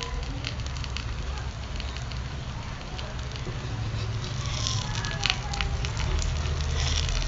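Pumpkin-flower fritters in rice-paste batter sizzling and crackling in hot oil on a tawa, with a low rumble underneath. A few sharper clicks come about two thirds of the way through as a spatula works at the fritters.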